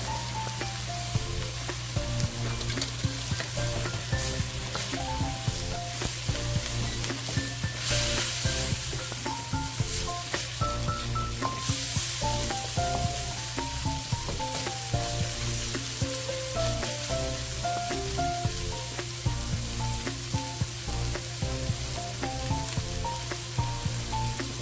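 Flaked milkfish and diced vegetables sizzling in a carbon-steel wok, with a wooden spatula stirring and scraping against the metal and many small ticks and taps. Soft background music plays a melody throughout.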